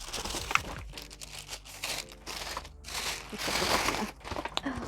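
Gift packaging being opened by hand: irregular crinkling and rustling, with a denser burst of rustling a little past halfway.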